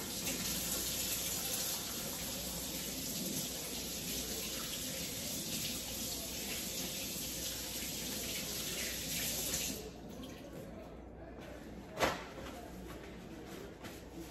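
Kitchen tap running into a stainless steel sink as hands are washed under it; the water is shut off about ten seconds in. A single sharp knock follows a couple of seconds later.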